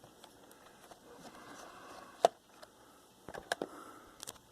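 Laptop's plastic bottom access cover being worked loose by hand: a faint rustle, one sharp click about two seconds in, and a few lighter clicks near the end.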